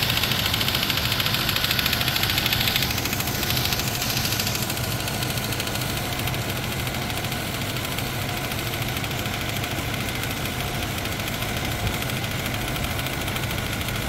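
Car engine idling steadily with the A/C running during a refrigerant recharge. A hiss of refrigerant flowing in through the charging hose fades out about four or five seconds in as the can runs empty.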